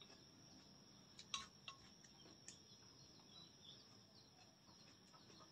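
Near silence: faint outdoor background with a steady high-pitched tone, a few faint chirps and a few soft clicks about a second in.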